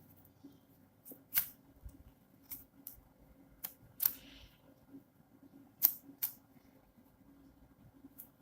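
A scattered run of about ten short, sharp, light clicks at uneven intervals, with quiet between them.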